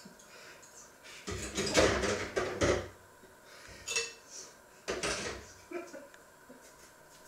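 Dishes and utensils clattering in a kitchen: a loud run of clinks and knocks about a second in, then a single clink a couple of seconds later and another short clatter soon after.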